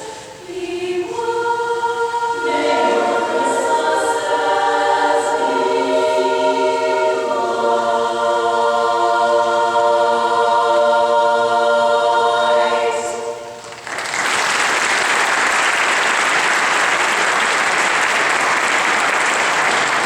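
An a cappella chorus singing held chords that move through several changes, ending about two-thirds of the way through; audience applause then breaks out and carries on.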